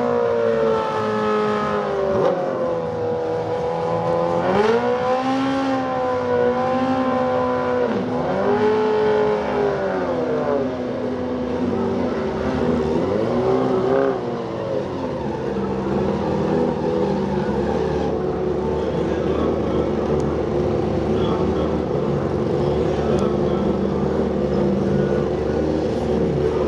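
Suzuki Hayabusa's inline-four engine revved hard during a burnout, its pitch swinging up and down several times over the first dozen or so seconds, then running steadier as the bikes stage.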